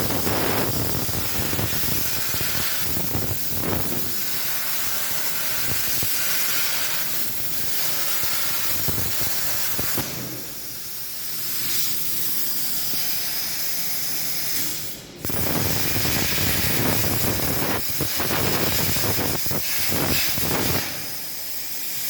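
CNC plasma cutter's torch cutting, a steady loud hiss of arc and air. It cuts off briefly about fifteen seconds in, then starts again.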